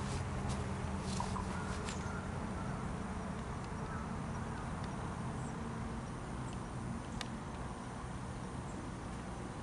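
Quiet open-air background with a low steady hum, a few faint clicks in the first two seconds and one more about seven seconds in.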